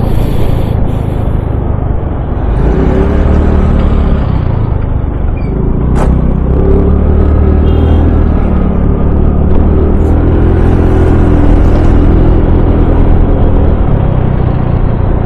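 Wind buffeting and road noise on a helmet-mounted microphone from a scooter ridden at highway speed, with an engine hum that comes and goes. A single sharp click about six seconds in.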